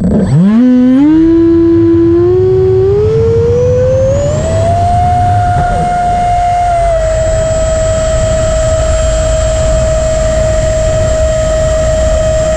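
Freewing Stinger's 64mm electric ducted fan, heard from a camera mounted on the jet, spooling up from a low whine to a loud, high, steady whine over the first five seconds as it goes to takeoff power. The pitch steps down slightly about seven seconds in, with a rumble of rolling and wind noise beneath.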